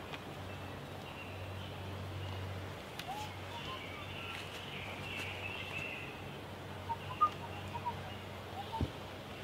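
Birds singing and twittering, with a few short, clear chirps near the end, over a steady low hum.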